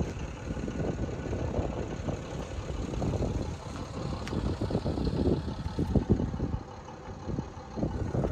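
A diesel engine idling, an uneven low rumble.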